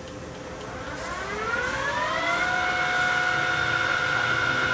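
Milltronics ML 17/40 lathe's variable-speed spindle drive speeding up: a whine that starts about a second in, rises in pitch and loudness for about a second and a half, then holds at a steady pitch.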